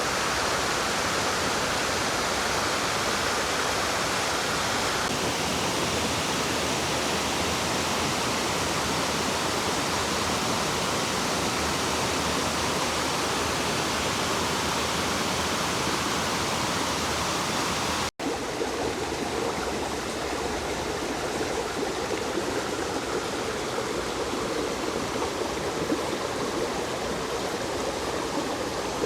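Creek water rushing steadily. About two-thirds of the way through it cuts out for an instant and comes back slightly lower in tone.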